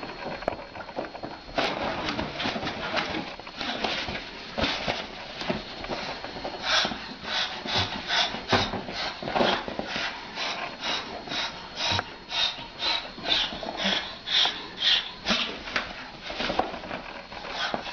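Cockatoo hissing at a kitten: short breathy huffs, about two or three a second, growing more regular a few seconds in.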